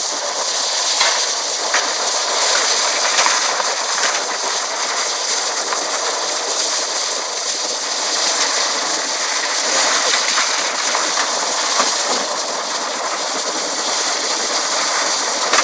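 Water from a burst water main gushing up through the road, a steady rushing hiss, with scattered sharp clicks and clatters of stones thrown up by the jet landing.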